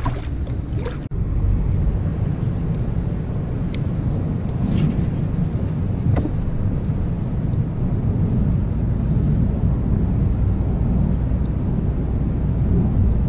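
Steady low rumble of wind on the microphone, broken by a sudden brief dropout about a second in, with a few faint clicks.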